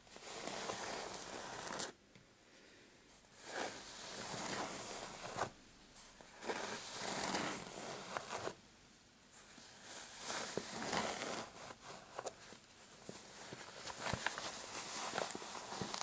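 Fingernails scratching the patterned fabric cover of a metal-framed clutch purse, in strokes of a second or two with short pauses between, and a few sharp clicks in the second half.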